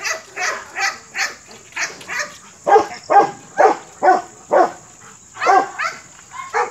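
A dog barking over and over, short barks about two a second with a brief pause near the middle.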